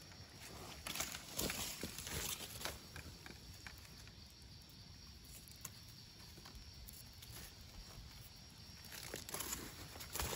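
Dry leaf litter rustling and crackling under hands and rubber boots as small mushrooms are picked from the forest floor. There are several sharp crackles in the first few seconds and a busier patch of rustling near the end, with quieter stretches between.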